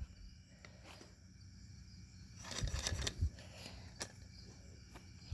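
Faint knocks and clicks of moped parts and tools being handled during disassembly, with a short run of louder low thuds about two and a half to three seconds in and a sharp click about four seconds in.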